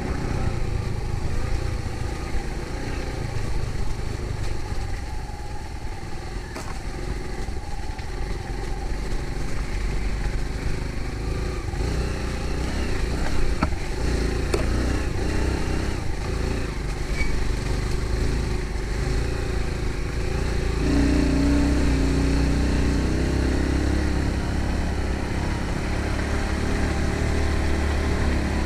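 An engine running steadily, its hum changing pitch and getting a little louder about two-thirds of the way through.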